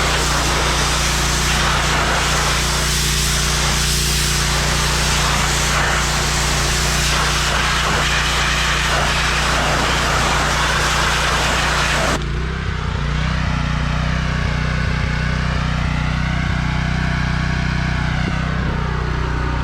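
Gas pressure washer's Honda GX390 engine running steadily with the hiss of the high-pressure water spray; about twelve seconds in the spray stops and the engine keeps running.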